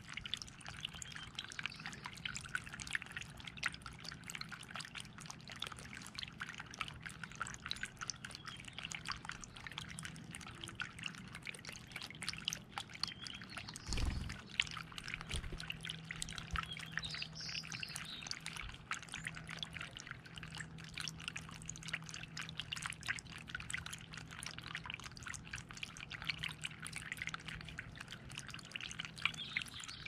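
Small bird-bath fountain trickling steadily, water spilling over a stone basin with a constant crackly splashing. There is a single low thump about halfway through.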